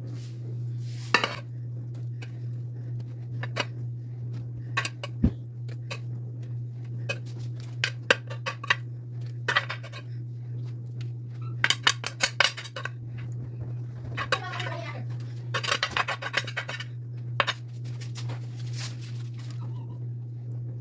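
Metal kitchen tongs clicking and scraping while serving food from a skillet onto foam plates: scattered single clinks and several short runs of quick clicks. A steady low hum runs underneath.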